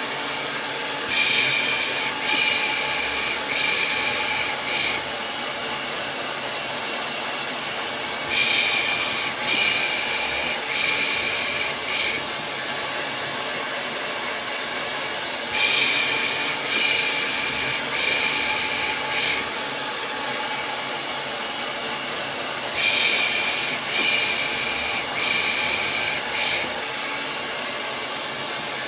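Steady hair dryer running as a white-noise bed, overlaid with rhythmic 'pış pış' baby-soothing shushing: runs of four hissing shushes, each about a second long, repeating about every seven seconds, four times in all.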